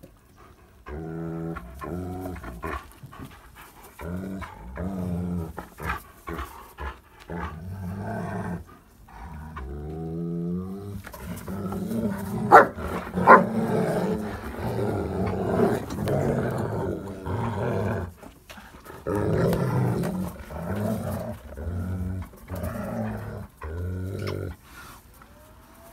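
Two German Shepherds growling in play while tugging on a rope toy, in repeated rumbling growls with short breaks. About halfway through come two short, sharp, louder sounds.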